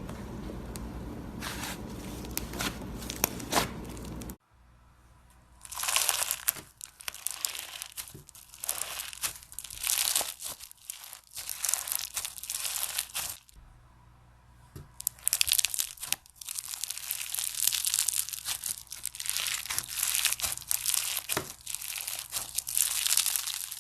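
Slime being squeezed and stretched by hand, giving dense crackling, crinkling sounds. They come in two long stretches with a quieter pause between them. The first few seconds sit over a steady low hum that cuts off abruptly.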